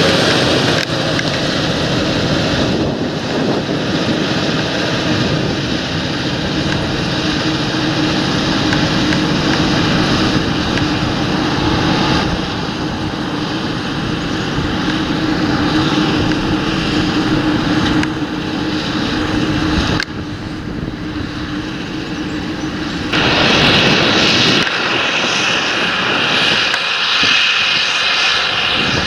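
Large John Deere tractor engine working under load in the field: a steady drone that changes abruptly several times.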